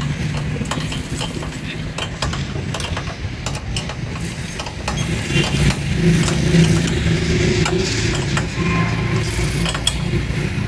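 An engine running steadily nearby, swelling a little partway through, with scattered sharp metallic clicks and taps of hand tools as a motorcycle's chain is tightened and its rear brake adjusted.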